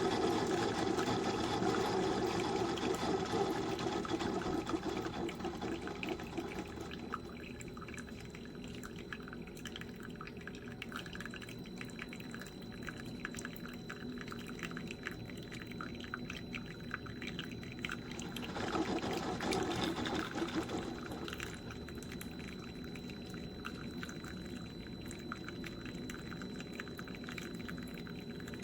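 Tastyle single-serve coffee maker brewing a hot cup: coffee streams from the spout into the cup, strongest for the first several seconds, then thins to a lighter, sputtering trickle. A brief surge of flow comes about two-thirds of the way through.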